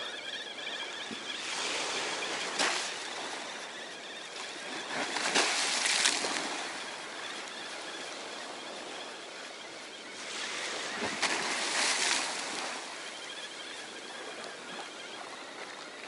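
Small sea waves breaking and washing up on the shore, the surf rising and falling three times with a few sharp splashes.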